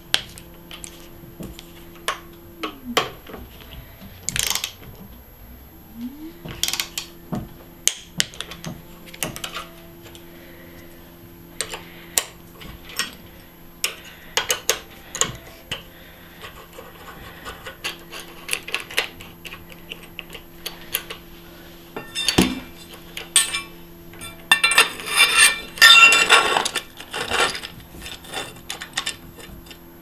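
Tools and metal bicycle parts clicking and clinking during a mountain bike build, with a louder flurry of rattling near the end. A steady low hum winds down about three seconds in and winds back up a few seconds later.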